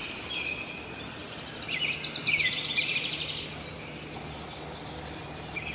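Birds chirping in quick, repeated high trills over a faint steady background hum; the chirps are loudest about two to three seconds in.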